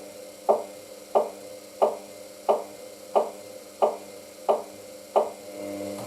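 Hoover DYN9144D3X front-loading washing machine drum turning slowly to balance the load before a spin. The laundry drops with a regular thud about every two-thirds of a second over a steady motor hum.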